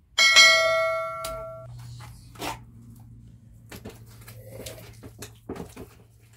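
A bright bell chime sounds just after the start and fades over about a second and a half: the notification-bell sound effect of a subscribe-button animation. After it come soft scrapes and taps of hands working wet mud plaster in a bucket.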